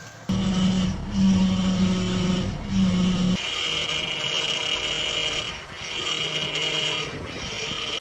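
A vehicle running, with a steady high whine and a low hum that drop in and out in stretches of a second or two.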